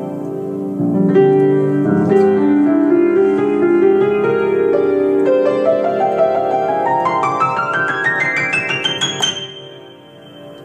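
Grand piano played solo: full sustained chords, then a rising arpeggio run climbing up the keyboard to a high note about nine seconds in, which is left ringing as it fades.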